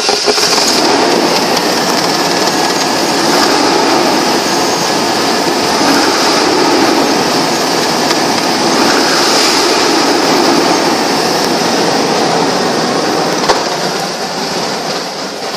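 1999 Chevrolet Tahoe engine idling steadily just after starting, heard close up under the open hood. It gets a little quieter near the end.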